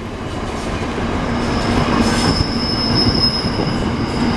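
Container wagons of a long freight train rolling past close by: a dense rumble and clatter of wheels on rail that slowly grows louder. About a second and a half in, a thin, steady, high-pitched wheel squeal joins it.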